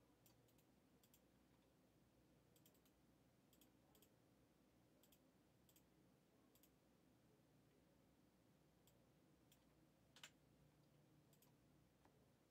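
Near silence with faint computer mouse clicks, scattered and often in quick pairs, one a little louder about ten seconds in.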